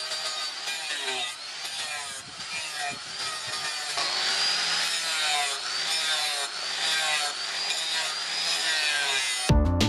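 Angle grinder with an abrasive disc grinding the flat face of a steel cleaver blade, its whine rising and falling as the disc is pressed and eased across the metal. Music cuts in suddenly just before the end.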